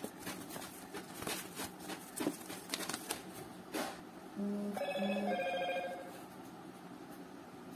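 Paper rustling and crinkling as a folded invoice is pulled from its paper envelope and unfolded by hand. About four seconds in comes a short electronic ring of a few notes, two quick low ones then a higher held one, lasting under two seconds and louder than the paper.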